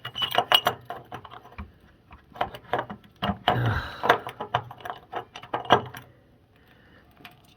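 Metal tools clinking and knocking as an element wrench is fitted over an electric water heater's heating element and a screwdriver is pushed through the wrench's holes for leverage. A quick string of sharp clicks and rattles that stops about six seconds in.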